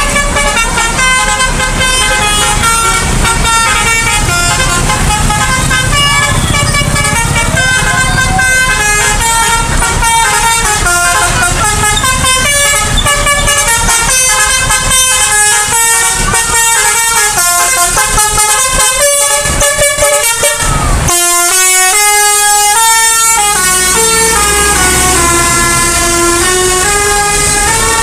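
Indonesian bus 'telolet' musical air horns playing multi-note tunes, the pitch stepping from note to note several times a second over the bus engines. About three-quarters of the way through the sound changes abruptly to another horn tune with sliding notes.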